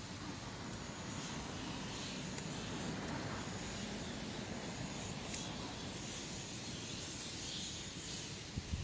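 Steady outdoor background noise, a low rumble with hiss; a few dull low thumps near the end.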